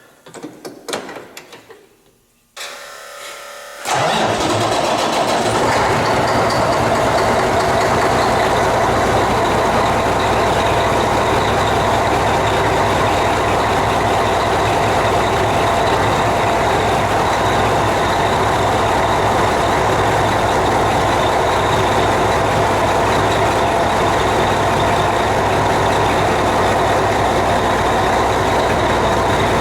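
Volvo VNL 780 semi truck's diesel engine being cranked by the starter, catching about four seconds in and then idling steadily. It runs so the A/C compressor can engage and pull in the refrigerant charge.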